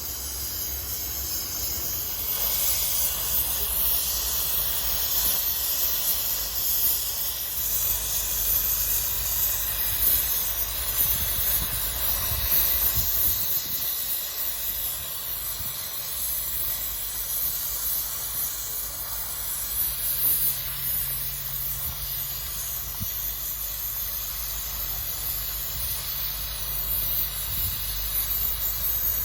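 Gas welding torch flame hissing steadily while a hole in a motorcycle crankcase is welded shut.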